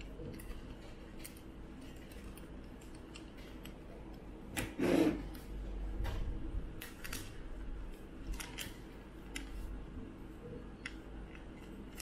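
Light clicks and taps of clear acrylic case panels, a small cooling fan and tiny screws being handled and fitted together, with one louder noise lasting about half a second around five seconds in.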